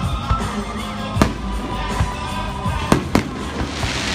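Aerial firework shells bursting: several sharp bangs a second or so apart, and a crackling burst near the end, with music playing underneath.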